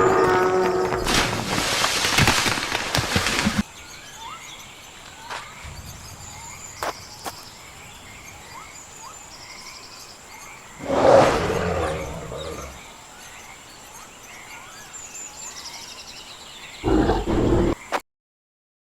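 Dubbed-in animal roar sound effects: a loud roar for the first three seconds or so, another about eleven seconds in and a short one near the end, over a quieter bed of chirping bird calls. The sound cuts off abruptly just before the end.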